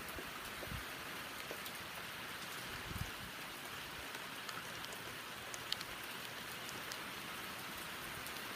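Heavy rain pouring down steadily, with scattered individual drops ticking close by and a couple of soft low thuds.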